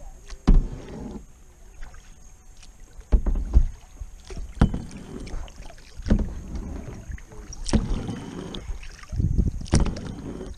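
Kayak paddle strokes: the blade dipping into river water, with a sharp splash or knock at irregular intervals of about one to two seconds.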